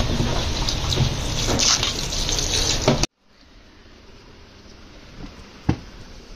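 Water gushing into a top-loading washing machine as it fills, with clothes being dropped into the drum. The sound cuts off sharply about three seconds in, leaving a fainter running-water hiss and a single knock near the end.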